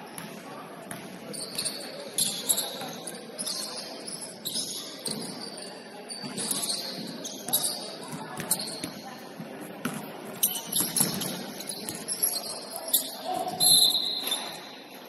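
Basketball game play: many short high squeaks of sneakers on the court, the ball bouncing, and players' voices.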